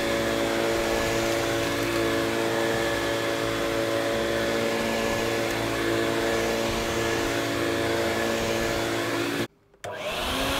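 Electrolux Turbo 2 upright vacuum cleaner running steadily after reassembly, working and sounding really well. The sound drops out briefly about a second before the end and comes back at a slightly different pitch.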